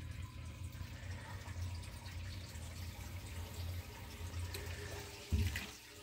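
A submersible sump pump runs in a sealed, airtight sump basin, pumping the basin empty. It makes only a quiet, steady low hum with a faint rush of water. About five seconds in there is a single thump and the hum drops away as the pump cycles off.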